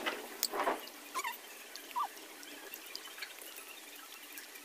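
Close-up eating sounds of instant noodles: wet mouth clicks and smacks while chewing, with a short noisy slurp about half a second in.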